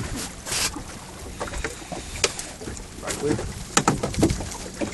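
Several sharp knocks and clatter as a landing net holding a small bass is brought in over a boat's gunwale and onto the deck, over a steady background of wind and water.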